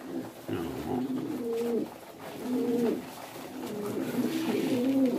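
Several domestic pigeons cooing, their low calls repeating and overlapping.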